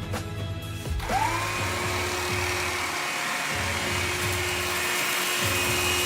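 A cordless cyclone vacuum cleaner's motor switches on about a second in, spinning up with a quickly rising whine and then running steadily with a rushing hiss, under background music with a beat.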